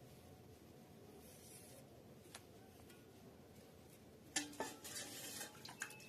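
Kitchenware clinking and clattering for a second and a half, starting about four seconds in after faint room tone; the last clink leaves a short ringing tone.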